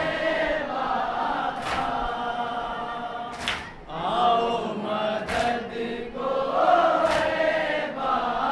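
A group of men chanting a nauha refrain together, with a sharp collective beat about every two seconds: matam, palms striking chests in unison.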